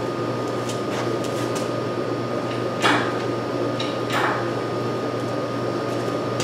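Light clicks and a couple of louder metal knocks from a shop engine hoist being worked, over a steady background hum. The knocks come about three and four seconds in.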